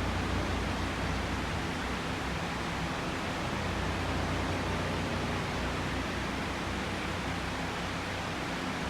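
A fan running: a steady, even rushing noise with a low hum beneath it.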